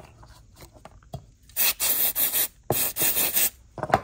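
Aerosol cleaner can spraying onto the corroded brushes of a brushed electric motor's end cap: two hissing bursts of under a second each, about one and a half and two and a half seconds in. Before them there is soft rubbing, and a short click comes near the end.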